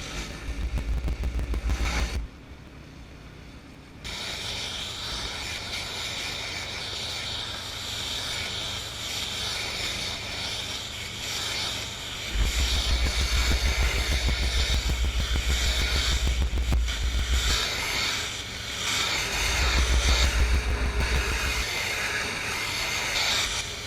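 Honda-engined pressure washer running while a Whisper Wash Classic surface cleaner sprays concrete: a steady high water hiss over the engine. The spray drops out for about two seconds a couple of seconds in, then resumes, with spells of heavy low rumble.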